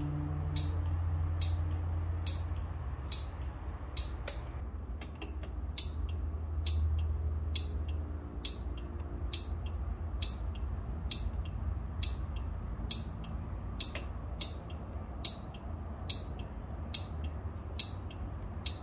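Turn-signal flasher of a 1995 Suzuki scooter ticking steadily, about two clicks a second, with the indicators switched on. A low steady hum runs beneath it.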